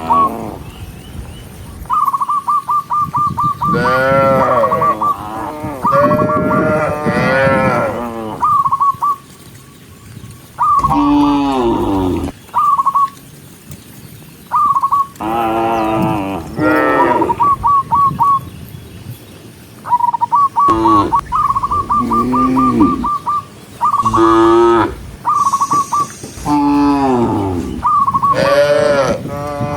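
Cattle mooing again and again, long calls that bend in pitch, several of them overlapping. Between the moos comes a fast, even chirping trill at one high pitch, repeated many times.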